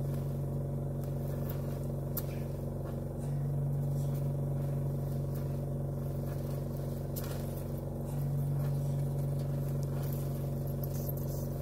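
Medical oxygen concentrator's compressor humming steadily, its level stepping up and down about every five seconds as it cycles, under the hiss of an oxy-acetylene torch flame playing on steel, with a few sharp crackles.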